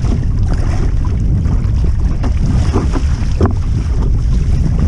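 Strong wind buffeting the microphone in a steady low rumble, with a few brief knocks in the second half.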